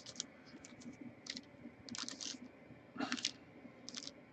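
Faint crinkling and clicking as a trading card pack and its cards are handled, in a few short bursts about a second apart.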